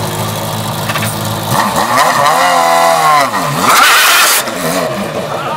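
Radical SR8LM's V8, built from two Suzuki Hayabusa motorcycle engines, idling steadily, then revved as the car pulls away. The revs climb and fall, with a loud burst of revs about four seconds in before the engine settles.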